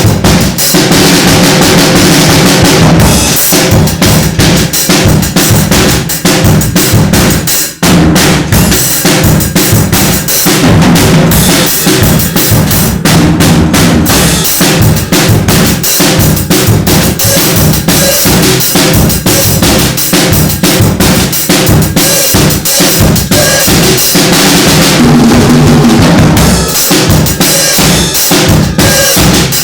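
Mapex drum kit played loud and continuously through a sound check: bass drum, snare and cymbals in a busy groove with fills. The playing breaks off for an instant about eight seconds in, and cymbals wash over the beat near the start and again late on.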